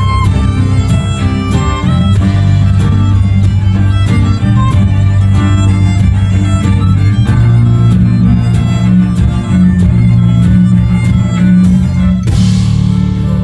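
Live progressive rock band playing an instrumental passage, with violin leading over cello, bass guitar, keyboard and a steady drum beat. About twelve seconds in, the beat stops on a cymbal crash and the playing thins out.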